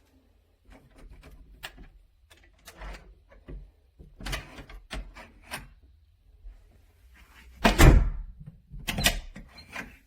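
Interior privacy door lever and latch being worked: a string of clicks and rattles, then a loud thud of the door about eight seconds in and another about a second later.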